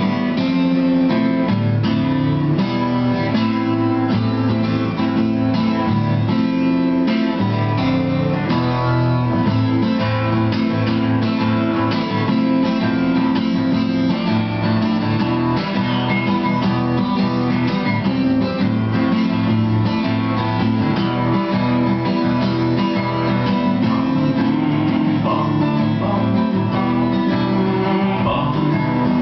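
Two acoustic guitars playing an instrumental passage: strummed chords under a picked lead guitar solo.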